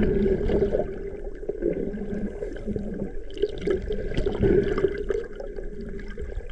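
Underwater sound picked up by an action camera in its housing: water sloshing and bubbling, with a steady low hum underneath.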